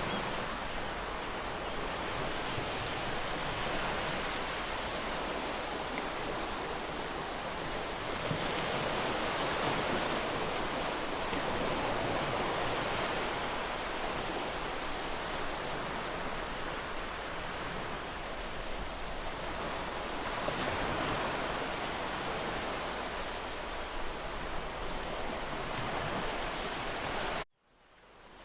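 Waterfall rushing, a steady dense roar of falling water. Near the end it cuts out suddenly and then fades back in.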